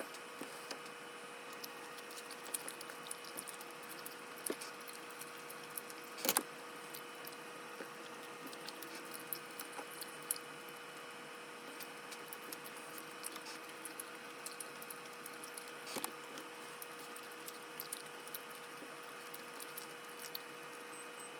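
Quiet room with a steady faint hum, broken by small scattered ticks and taps and a sharper knock about six seconds in.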